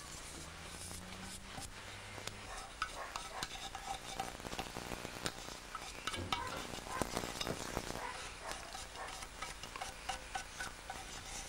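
Light scratching and ticking of a small hand tool against the washi-covered rim of a lacquer bowl base, many quick small strokes that grow busier in the middle.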